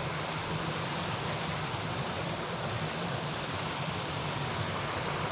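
Steady rush of a small mountain stream running over rocks.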